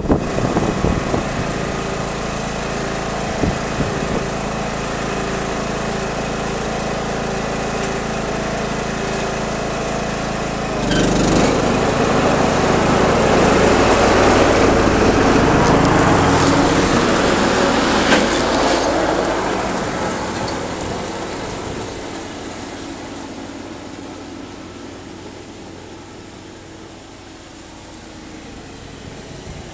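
Lawn mower engine running steadily, growing louder about a third of the way through and then fading away over the last ten seconds as it moves off.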